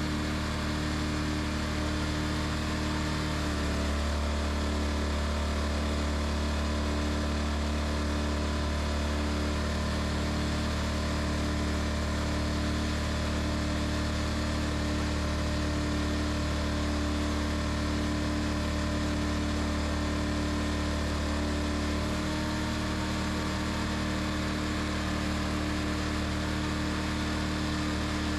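Woodmizer LT40 sawmill's engine running steadily. Its sound grows fuller about three and a half seconds in and settles back about three-quarters of the way through.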